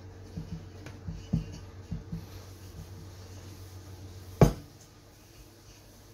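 Hands rubbing and tucking a terry-cloth tea towel over a dough bowl, with several dull knocks in the first two seconds and one sharp knock about four and a half seconds in, over a low steady hum.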